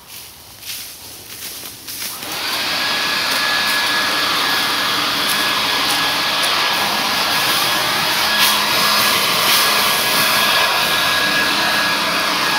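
Handheld leaf blower switched on about two seconds in. Its motor whine rises briefly to a steady pitch, then it runs at full speed with a steady rush of air.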